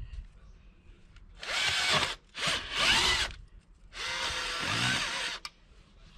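Cordless drill turning an auger bit into heavy clay soil in three short runs of a second or so each, its motor whine bending up and down in pitch as the bit loads.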